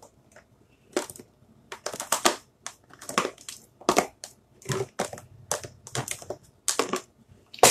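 Plastic paste jars and their screw-on lids clacking and knocking as they are handled and set into a plastic caddy: a quick, irregular series of short knocks and clicks.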